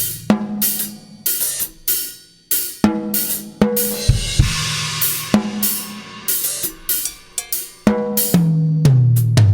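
Tama drum kit being played: snare, bass drum, hi-hat and cymbal hits, with a crash cymbal ringing out about four seconds in. Near the end, a fill runs down the toms, each hit lower in pitch.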